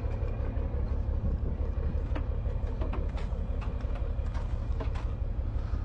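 Semi truck's diesel engine idling steadily, a continuous low rumble, with a few faint clicks over it.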